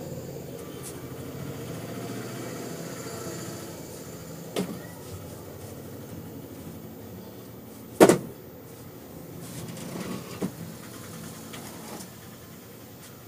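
Large tailor's shears cutting through cotton fabric on a table, a few sharp clicks of the blades, the loudest about eight seconds in, over a steady low hum.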